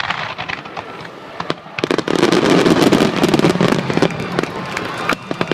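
Aerial fireworks bursting, with many sharp pops that thicken into a dense, loud crackling about two seconds in, then thin out again to scattered pops.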